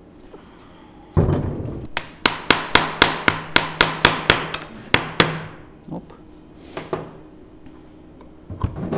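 A hammer taps the steel shell of a Volvo torque converter from an Aisin AW55-51SN automatic transmission to knock its cut halves apart. After a heavy thud, about a dozen quick strikes come at roughly four a second, each with a short metallic ring, and two or three lighter knocks follow.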